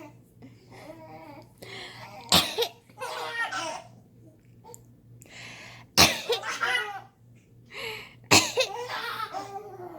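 Girls sneezing: three sudden, sharp sneezes a few seconds apart, each followed by laughter.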